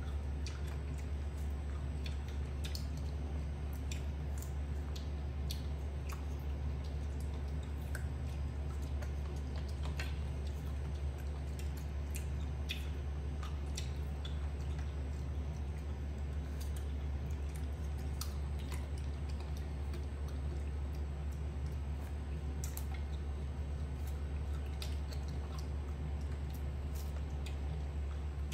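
Young macaque chewing pieces of fruit, heard as irregular small clicks, over a steady low hum.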